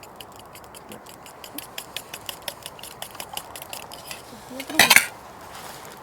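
A metal utensil clicking rapidly against a dish, several light taps a second, with one louder scraping clatter about five seconds in.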